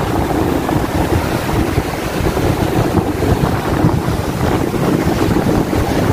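Strong wind buffeting the microphone in gusts, with waves breaking on the shore underneath.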